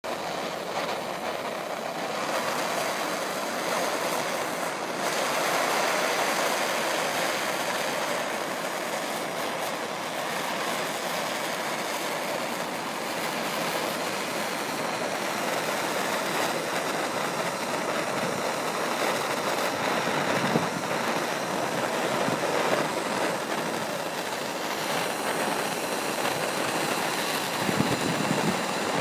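Gas torch flame burning with a steady rushing hiss as it is held against a metal sheet.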